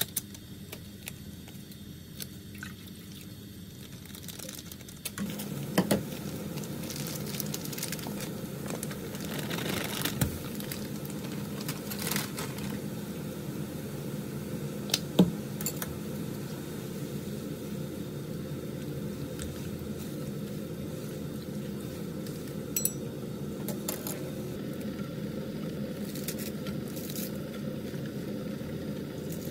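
Udon broth heating to a boil in a pan on a gas stove: a steady bubbling hiss that sets in about five seconds in, with scattered clicks and taps of packets and utensils over it.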